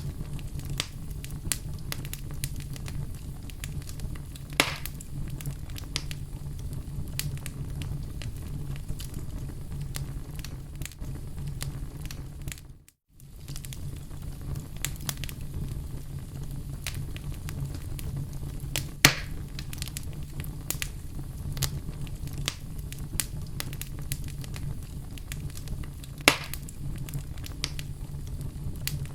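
Wood fire crackling, with frequent small snaps and three louder pops, over a low steady rumble. The sound drops out for a moment about halfway through.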